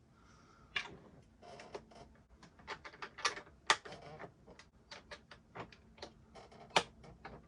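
Plastic building bricks clicking and tapping as pieces are handled and pressed together, a few sharp clicks a second at an uneven pace, with two louder snaps.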